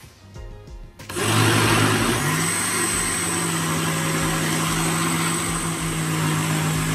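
Countertop jug blender switched on about a second in, its motor running steadily as it blends a thick okra punch mixture. The motor's hum steps up in pitch a little over a second after it starts, as it comes up to speed.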